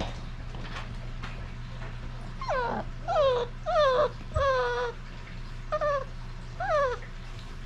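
A 33-day-old basset hound puppy whining: six short whimpers over about four seconds, each falling in pitch, the fourth one drawn out. A steady low hum runs underneath.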